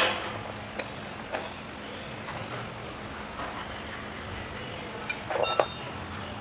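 Metal tractor axle parts knocking and clinking as they are handled on the work surface: a sharp knock at the very start, a couple of light taps, then a cluster of ringing clinks about five seconds in as steel ball bearings are set down, over steady background noise.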